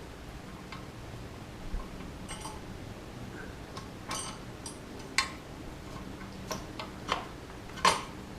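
Light metallic clicks and clinks of hand tools and small bike parts being handled, about ten irregular taps with no steady rhythm.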